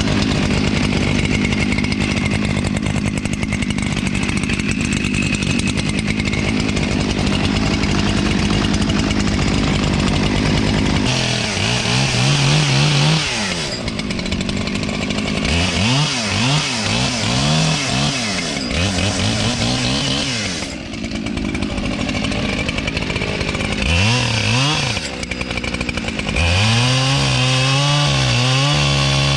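Two-stroke chainsaw running at a steady high speed for about the first eleven seconds. It then revs up and down repeatedly, its engine pitch rising and falling.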